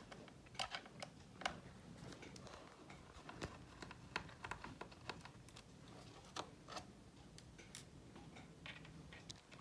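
Faint, scattered small clicks and ticks of a small screwdriver and tiny screws being worked out of a MacBook Pro's bottom case and set down.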